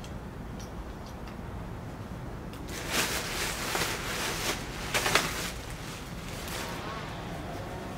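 Nylon fabric of an airblown inflatable rustling and crackling as it is lifted and handled, over a steady low rumble. The loudest rustles come about three and five seconds in.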